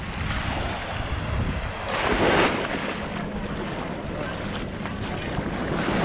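Small waves washing up onto a sandy beach, with one louder surge of surf about two seconds in, and wind buffeting the microphone.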